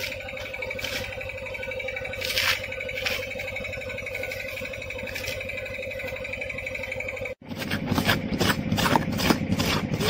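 Perforated iron ladle scraping against an iron kadai while stirring a thick mix of ground chana dal paste and boiling jaggery syrup, at first with a few separate strokes over a steady high hum. After an abrupt break about seven seconds in comes fast, continuous scraping and slopping as the mixture is stirred hard.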